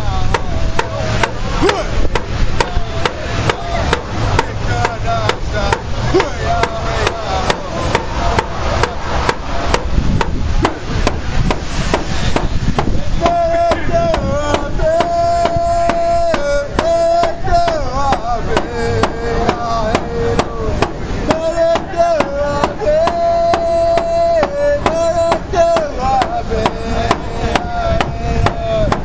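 Hand drum struck with a stick in a steady, even beat while a voice sings over it; the singing grows stronger about halfway through, with long held high notes.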